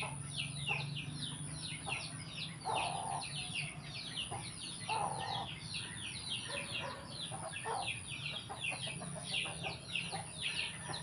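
Background chickens: a continuous run of quick high chirps, several a second, with a few lower clucks, over a steady faint high whine.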